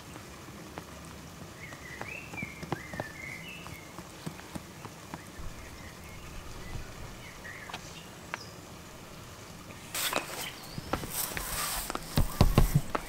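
Small clicks and knocks of a plastic mixing cup and a hand glue roller being handled while liquid resin glue is stirred and poured into the roller. About ten seconds in, a louder rough rolling noise starts as the glue roller is run along thin wood veneer strips, with a few sharp knocks near the end.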